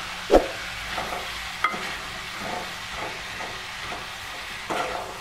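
Cowpea seeds frying in hot oil in a wok: a steady sizzle, with a spoon scraping through them and clicking against the pan as they are stirred. The sharpest knock comes about half a second in.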